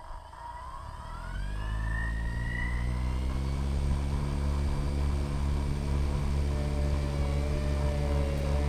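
A drone's electric motors and propellers spinning up with a rising whine over the first two to three seconds, then running at a steady pitch with a constant propeller hum.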